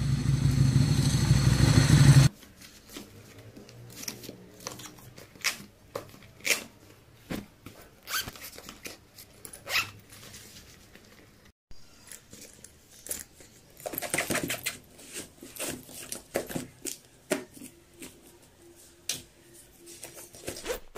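A loud steady hum that cuts off suddenly about two seconds in, then quiet handling sounds of a Nikon DSLR and camera backpack being packed: scattered clicks and knocks of the camera body and lens, and rustling of the bag's fabric, with a longer stretch of rustling about two thirds of the way through.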